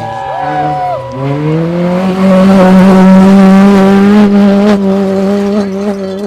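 Rally car engine that eases off briefly, then accelerates hard with the revs climbing steeply and holding high for several seconds before backing off near the end.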